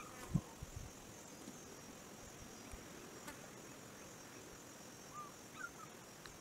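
Steady high-pitched insect chorus, like crickets, under a quiet outdoor background. A few soft low thumps fall in the first second, and a couple of faint short chirps come near the end.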